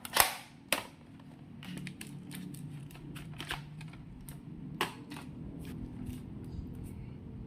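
Plastic toy guns being handled: one sharp pop just after the start, then scattered clicks and snaps of plastic mechanisms, with a faint low hum underneath.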